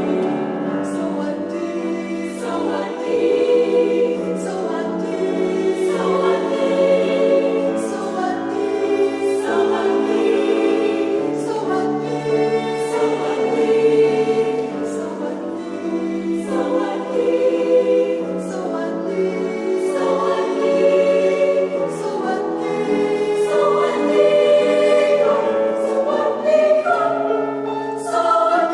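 Choir singing in several parts: full sustained chords, with crisp consonants sung together at a steady pulse every second or two.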